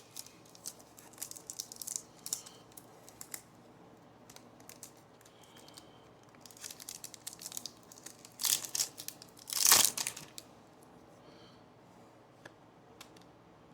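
Foil wrapper of a Topps baseball card pack crinkling and being torn open, with scattered crackles and two louder rips about two-thirds of the way through.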